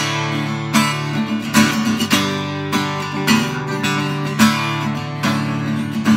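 Acoustic guitar strumming chords in a steady rhythm, playing the instrumental intro of a song before the vocals come in.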